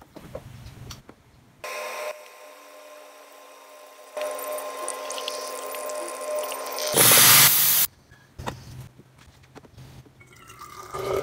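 Lexical espresso machine humming steadily as it brews into a glass carafe, growing louder partway through, then a loud hiss lasting about a second. Near the end, a few light knocks and coffee being poured from the carafe into a bottle.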